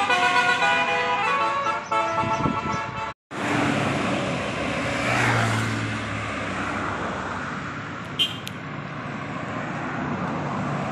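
Multi-tone 'telolet' (basuri) bus horn playing a quick melody of changing notes for about two seconds. After a brief dropout, a bus engine and passing road traffic follow.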